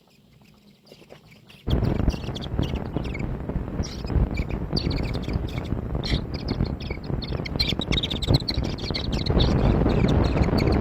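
Small birds chirping repeatedly in quick, high notes. Under them, a loud, low rushing noise starts abruptly about two seconds in and continues.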